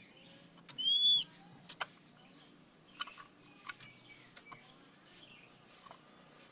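Oriental magpie-robin (kacer) singing: one loud, clear whistled note about a second in, then a series of sharp clicking calls and fainter short whistles.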